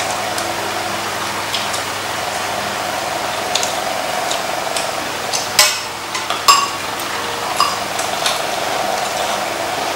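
Chopsticks and spoons clinking against bowls and a metal pan during a meal, with a few sharp clinks about five and a half, six and a half and seven and a half seconds in, the one in the middle ringing briefly. Under it runs the steady hum of an electric fan.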